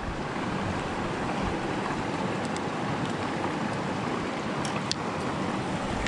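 Steady rush of a rocky stream's running water, with a few light clicks about halfway through and near the end.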